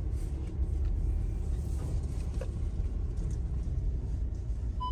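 A 4x4 driving slowly along a bush track: a steady low rumble of engine and tyres with a few light knocks. An electronic beep starts right at the end.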